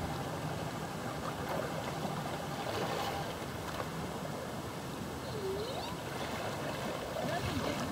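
Lake water lapping and splashing around kayaks at the shoreline, a steady noisy wash. A faint whistle-like call dips and rises about five and a half seconds in.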